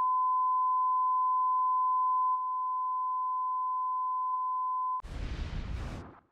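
Broadcast line-up test tone: a single steady pure pitch that cuts off suddenly about five seconds in. About a second of rushing noise follows.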